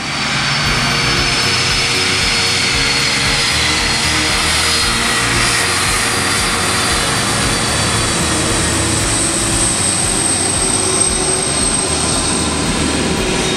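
Boeing 747-400's four GE turbofan engines running loud as the jumbo jet rolls past on the runway: a dense, steady rush of jet noise with high whining tones on top, one growing stronger after about nine seconds. The noise eases just before the end.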